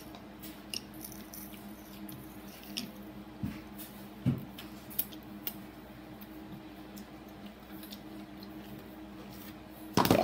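Quiet table-eating noises: wooden chopsticks clicking and tapping against ceramic noodle bowls, with soft chewing, over a steady low hum. A louder burst of noise comes near the end.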